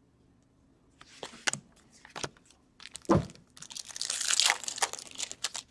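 A hockey card pack's wrapper being torn open and crinkled while the cards are handled: scattered crackles and rustles, densest about four seconds in.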